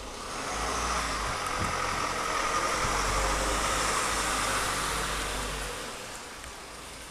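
A vehicle passing by: a rushing noise that swells within about a second, holds for a few seconds and fades away about six seconds in.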